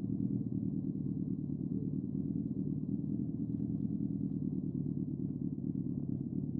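Motorcycle engine idling steadily, a low, evenly pulsing sound.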